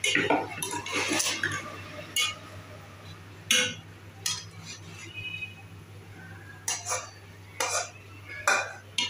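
Steel spatula knocking, clinking and scraping against a steel cooking pot and a wok as fried vegetable masala is stirred and scraped into boiled macaroni. The sound comes as a series of sharp separate clinks, with the loudest about halfway through and near the end.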